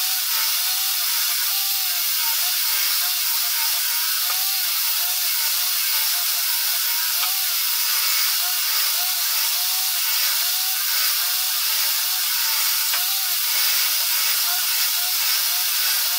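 Table saw running steadily while ripping pine boards lengthwise, the blade cutting through the wood as each board is pushed along the fence.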